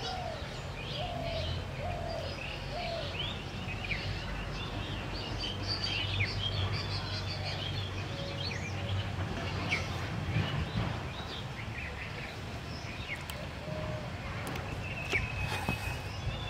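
Small birds chirping and calling throughout, with a lower-pitched call repeated four times in the first few seconds, over a steady low background rumble.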